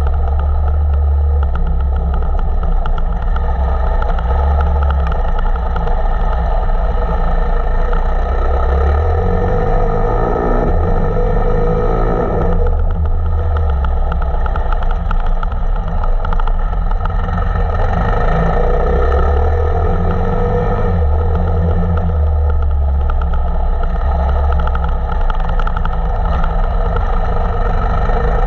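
Single-cylinder four-stroke engine of a KTM 525 EXC enduro bike running under load, its note rising and falling with the throttle. The revs drop and pick up again about ten to twelve seconds in.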